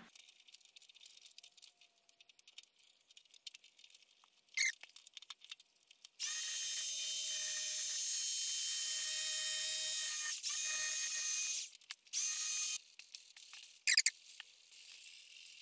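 Electric carving knife running as it trims the edge of upholstery foam on a seat: a steady, high motor whine starting about six seconds in and lasting about five seconds, then a short second run. A brief sharp noise comes shortly before it starts and another near the end.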